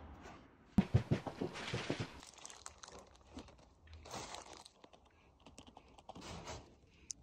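Crinkling and crackling handling noise from a plastic piping bag of plaster adhesive being squeezed as glue is laid along a plaster moulding. A dense run of crackles comes about a second in and is the loudest part, with softer rustles twice later.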